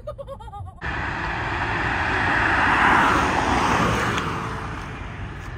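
A car going past at speed, a rush of engine and road noise that starts abruptly about a second in, swells to a peak in the middle and fades away near the end.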